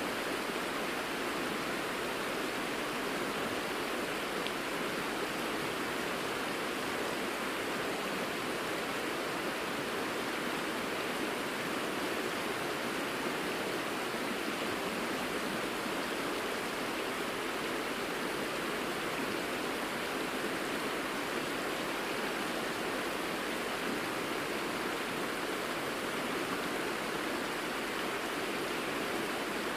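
Mountain river flowing over a shallow gravel bed: a steady, unbroken rush of water.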